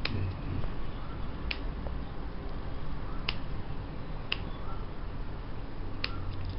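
Five sharp, isolated clicks, one to two seconds apart, over a steady low hum.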